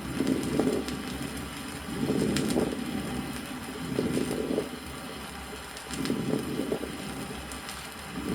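Chest auscultation recording of a patient with pneumonia: breaths about every two seconds, each inspiration carrying moist, ringing, fine-bubbling crackles (fine crackles typical of pneumonia).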